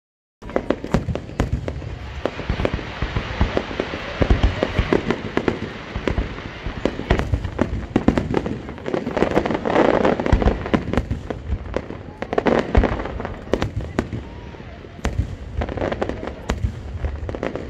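Aerial fireworks display: a dense, rapid series of bangs and crackles from bursting shells, starting abruptly just after the beginning.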